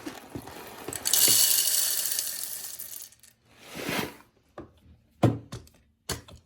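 Whole coffee beans poured into the bean hopper of a Sage (Breville) Barista Touch espresso machine: a dense rattle that swells about a second in and fades over about two seconds. It is followed by a few separate clicks and knocks near the end.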